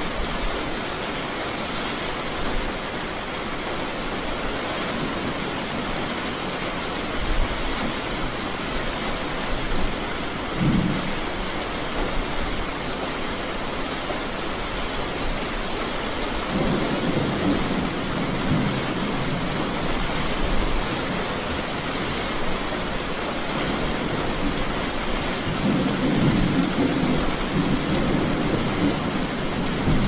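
Steady rain pattering, with rolls of thunder rumbling low under it: a short one about a third of the way in, longer ones in the middle and again near the end.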